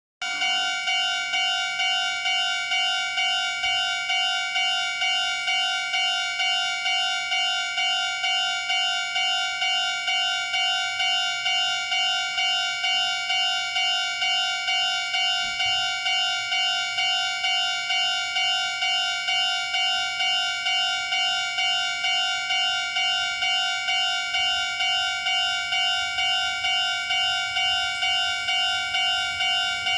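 Japanese level crossing's electronic warning bell ringing over and over at a steady, even pace: the crossing is closed for an approaching train.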